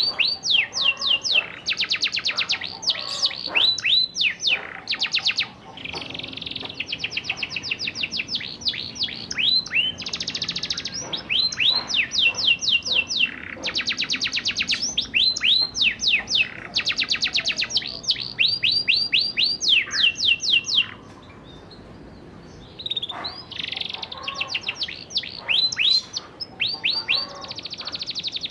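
Domestic canary singing a long run of fast rolling trills: rapid strings of repeated high notes, many sweeping down in pitch. The song pauses for about two seconds near three-quarters of the way through, then resumes.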